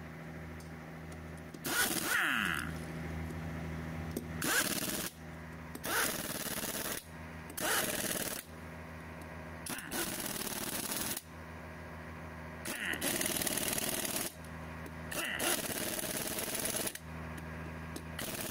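Heavy impact wrench hammering on the wheel nuts of a Komatsu GD755 grader's front wheel in repeated bursts of a second or two, nut after nut, running the wheel back on after a hub bearing job. A steady engine hum runs underneath.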